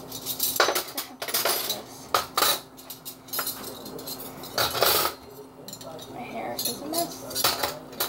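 Cutlery and dishes clinking and clattering as they are handled and unloaded from a dishwasher, in an irregular string of sharp knocks over a steady low hum.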